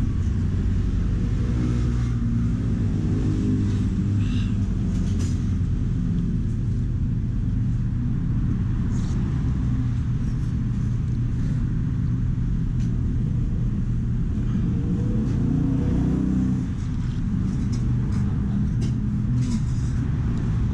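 Steady low rumble of road traffic, with a few faint short clicks.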